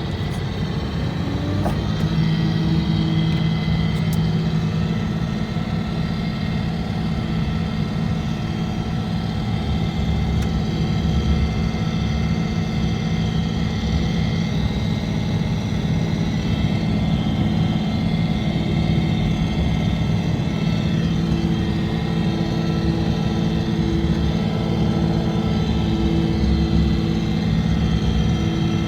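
Engine of a snow-plowing vehicle running steadily, a constant low hum with a few higher tones above it.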